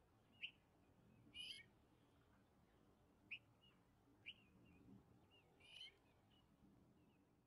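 Faint outdoor birdsong: short high chirps every second or so, with two longer, harsher calls about one and a half seconds in and just before six seconds in.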